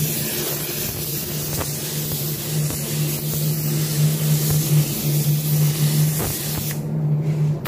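Compressed-air paint spray gun hissing steadily as it lays a wet coat of 2K clear coat, with a steady low hum underneath. The spray hiss cuts out briefly near the end as the trigger is let go, then starts again.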